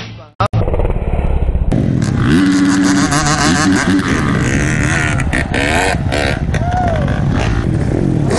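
Background music cuts off at the start; then a dirt bike engine revs up and down, under rough rushing noise.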